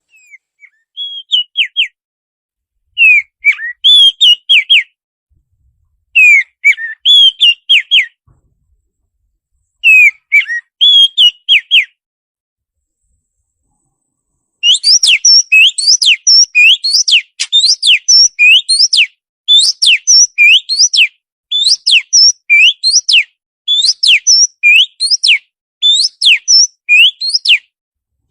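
Songbird song of the kind played as a 'masteran' training track for caged birds. First come short phrases of quick whistled notes with clean silent pauses between them. About halfway through, the bird breaks into a long unbroken run of repeated rising-and-falling whistles.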